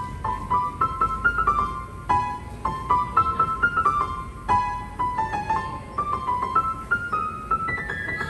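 Upright piano played by hand: a simple single-note treble melody, a few notes a second, the same short phrase repeating and climbing higher near the end.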